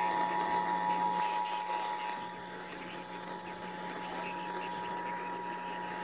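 Emergency Alert System two-tone attention signal, two steady tones sounded together, coming over AM radio through the radio's speaker with static and a low hum underneath. It marks the start of an EAS required monthly test message.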